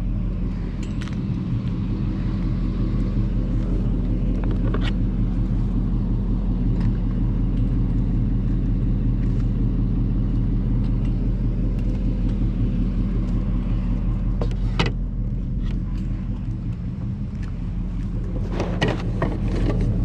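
Car running steadily: a constant engine hum with road noise, broken by a few short clicks and knocks, most of them near the end.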